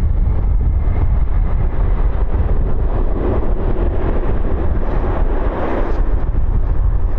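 Jet engines of a Ryanair Boeing 737 rolling at speed down a wet runway, a rushing roar that builds about three seconds in and is strongest around the sixth second. Heavy wind buffets the microphone with a low rumble throughout.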